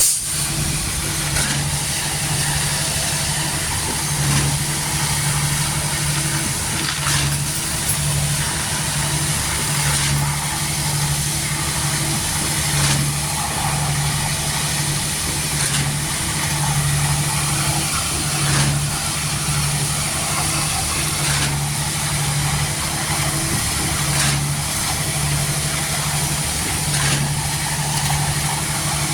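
Concrete truck's diesel engine running steadily, its low hum pulsing about every second and a half, with a sharp knock about every three seconds.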